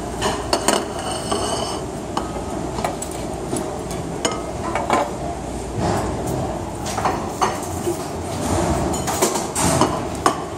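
Dishes and serving utensils clinking and clattering, a scatter of short sharp knocks over a steady background din, with a few brief metallic rings near the start.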